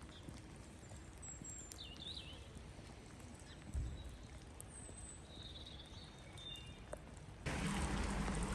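Faint outdoor ambience with a few short, high bird chirps and a low thump about four seconds in. Near the end, steady heavy rain noise comes in suddenly.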